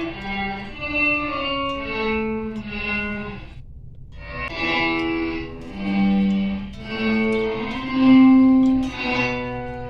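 Electric guitar played through a reverse reverb pedal: slow, sustained single notes that swell in like bowed violin or cello, with a short pause about four seconds in.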